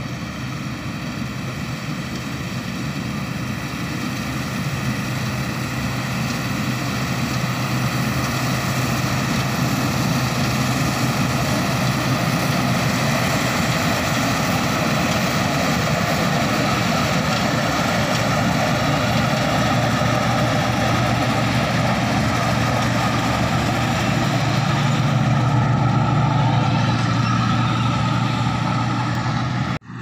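Combine harvester running while cutting wheat: a steady engine drone with a low hum, growing louder as the machine draws near. It breaks off abruptly near the end.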